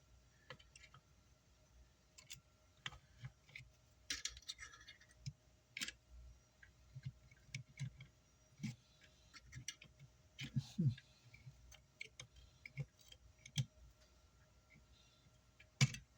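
Scattered light clicks and taps of small metal parts and a screwdriver being handled while an amplifier is put back together, with a louder knock near the end.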